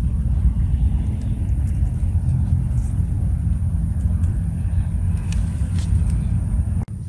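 Wind buffeting the microphone: a steady, loud low rumble that dips for a moment just before the end.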